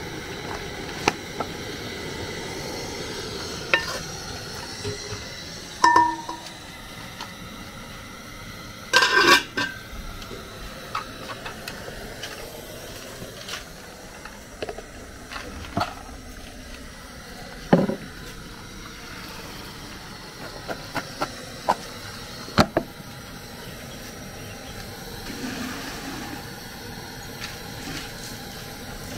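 Kitchenware being handled: scattered clinks and knocks of pots, lids, plates and utensils, some with a short metallic ring, the loudest cluster about nine seconds in, over a steady background hiss.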